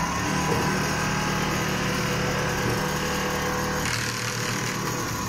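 Richpeace CNC template sewing machine stitching at high speed: a steady mechanical whir of motor and needle. The tone shifts once, about four seconds in.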